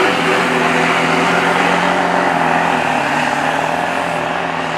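Diesel pickup truck engine running at full throttle under heavy load while it drags a weight-transfer sled. It makes a loud, steady drone whose pitch dips slightly about halfway through.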